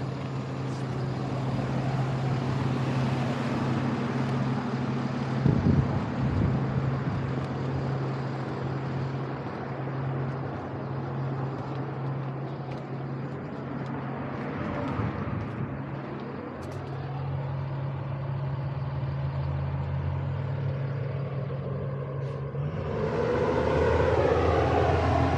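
A motor vehicle's engine running steadily with a low hum, and a vehicle going by near the end, louder for a few seconds.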